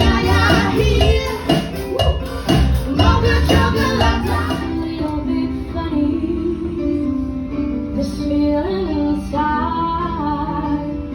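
A 1970s song performed with a band and a woman singing. The steady drum beat drops away about five seconds in, leaving slower, held sung notes over sustained accompaniment.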